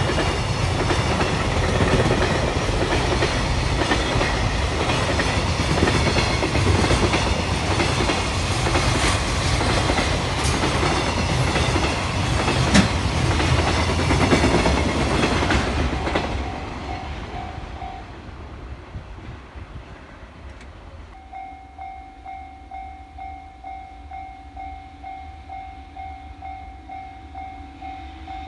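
Freight train of container wagons rolling past at speed, wheels clacking over the rail joints, with one sharp clank about halfway through. The train's sound fades away about two-thirds of the way in, leaving a Japanese level-crossing warning bell ringing with a quick, steady repeat.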